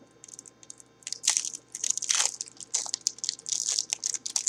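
A trading card pack wrapper being torn open and crinkled by hand. The crackles are irregular and start about a second in.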